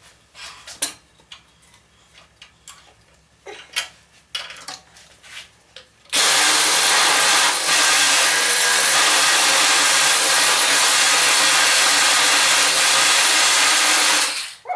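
Scattered clicks and knocks of handling, then about six seconds in a handheld power tool starts and runs steadily for about eight seconds on wood, stopping just before the end.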